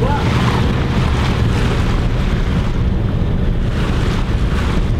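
Wind buffeting the microphone over the rush of water along the hull of a sailing yacht under way, a steady heavy rumble with gusts that swell and fade.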